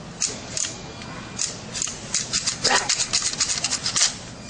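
Sharp plastic clicks and rattles from a toy grabber's snapping jaws worked close to the microphone, scattered at first and then a rapid run of clicks from about two seconds in.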